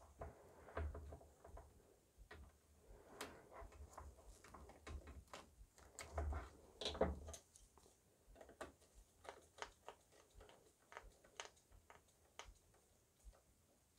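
Faint, scattered clicks and snips of hand wire tools, wire cutters and strippers, working on the printer's wire ends, as the tinned ends are cut off and the wires stripped. The louder knocks come about six to seven seconds in.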